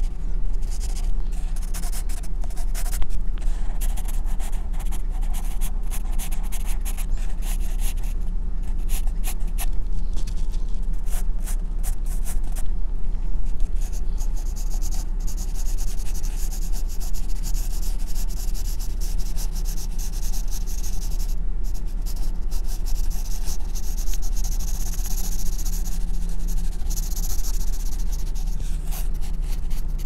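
Pencil scratching on drawing paper in quick sketching and hatching strokes, over a steady low hum.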